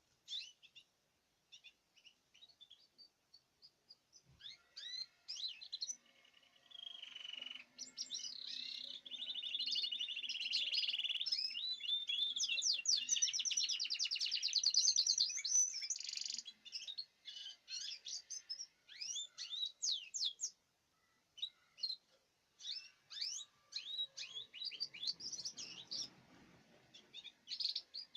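Canary singing in a cage: scattered short high chirps, then one long song of rolling trills from about eight to sixteen seconds in, then chirping again.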